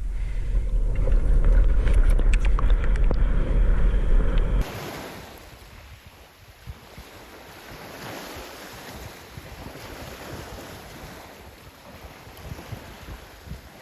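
Wind buffeting the microphone with a low rumble and a few small knocks. After about four and a half seconds it cuts abruptly to a quieter, even rush of water and wind.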